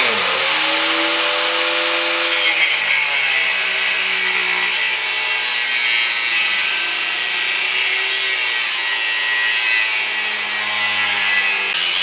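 Angle grinder with a thin cut-off disc spinning up and then cutting steadily through the wall of a painted steel cylinder, a high whine over the grinding noise. Near the end the disc briefly slows and then picks up speed again.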